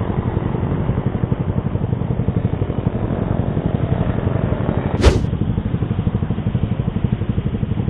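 Yamaha R15 V3's 155 cc single-cylinder engine idling in neutral through an SC Project exhaust with a dB killer, a steady, even throb of exhaust pulses. A single sharp knock about five seconds in.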